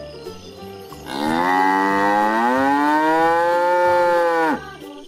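A cow mooing once: one long call of about three and a half seconds that rises in pitch partway through and drops away sharply at the end. Soft background music with steady notes plays under it.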